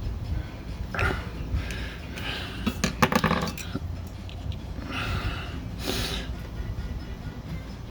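Metal tools clinking against the typewriter's metal frame as the screwdriver is worked and handled, with a quick cluster of clinks about three seconds in and low handling noise underneath.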